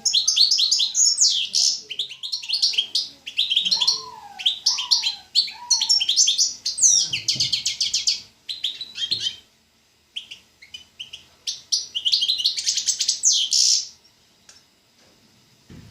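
A songbird singing a long, fast song of rapid trills and chirps, with a few lower sliding notes. It sings in phrases, pauses briefly a little after halfway, and stops about two seconds before the end.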